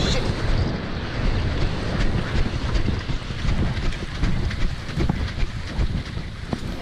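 Heavy wind buffeting the microphone: a loud, dense, fluttering rumble, with the wash of surf on the beach beneath it.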